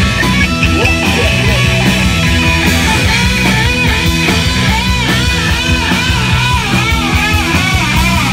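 Live punk rock band playing loud on electric guitars, bass guitar and drums. Over the second half, a high line bends up and down in pitch above the steady bass and drums.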